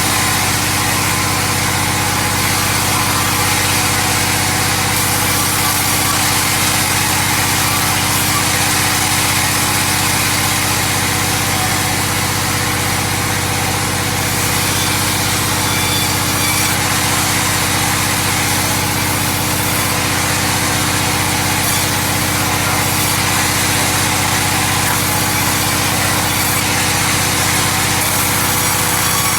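Stihl chainsaw running steadily at high speed through a long cut in timber, its pitch and level holding even throughout.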